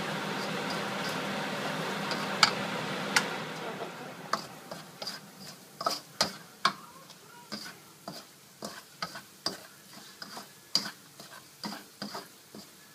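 Chopped garlic sizzling in oil in a stainless steel wok, the sizzle dying down about four seconds in, while a spatula stirs and scrapes it, knocking against the wok in sharp irregular clicks.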